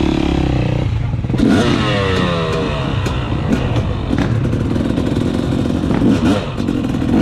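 250 cc two-stroke motocross bike engine running at low speed with the throttle worked up and down, and a rev that climbs sharply about a second and a half in.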